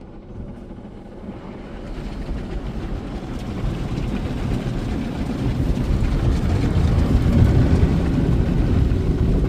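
Ryko Softgloss MAXX 5 rollover car wash starting its soft-touch cycle: spinning cloth brushes and water working against the car, heard from inside the car as a low, dense noise that grows steadily louder.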